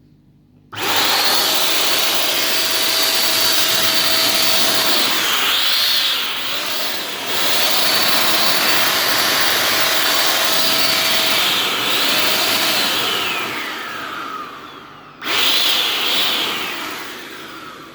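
Upright vacuum cleaner motor switched on, running with a high steady whine; twice its pitch dips and recovers. It then spins down with a falling whine, is switched on again near the end and spins down once more. This is a test run after its power cord was replaced.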